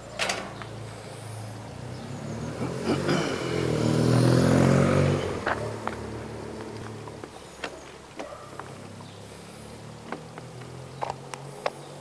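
A vehicle passes close by: a low hum swells to a peak about four to five seconds in, then fades away. Scattered sharp clicks, several of them near the end.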